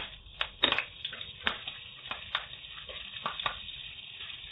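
Slit green chillies frying in hot oil in a wok: irregular sharp crackles and pops of spattering oil over a faint sizzle.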